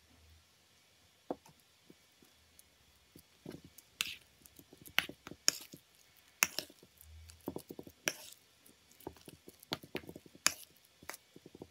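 Metal spoon stirring mashed potatoes in a stainless steel bowl: irregular clinks and scrapes of the spoon against the bowl with soft squishing of the mash, starting about three seconds in.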